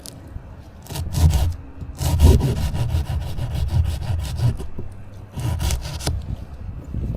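Saw cutting through a basswood limb in three spells of sawing, the longest lasting about two and a half seconds.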